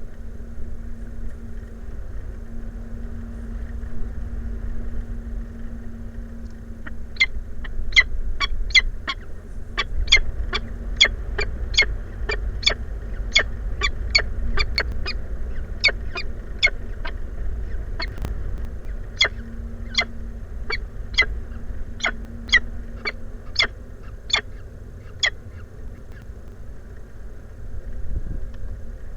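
A bird's short, sharp calls, repeated about twice a second for some eighteen seconds, over a steady low rumble.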